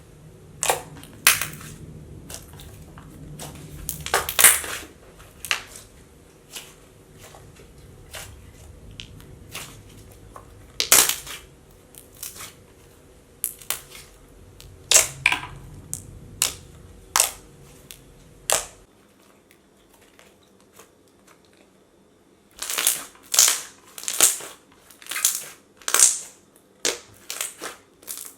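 Thick, glossy slime being poked, pressed and stretched by hand, giving irregular sharp clicks and pops, several in quick succession near the end. A low background hum stops partway through.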